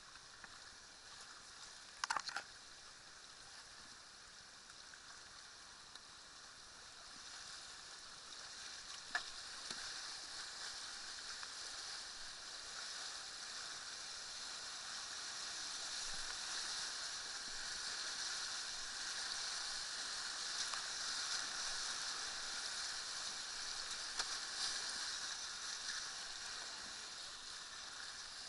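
Whitewater rapids rushing and splashing around a kayak: a steady hiss of moving water that grows louder from about a quarter of the way in as the boat runs rougher water. Two sharp knocks cut through, the louder one about two seconds in and another near nine seconds.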